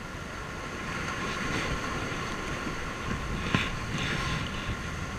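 Steady outdoor background noise, with a single sharp click or knock about three and a half seconds in.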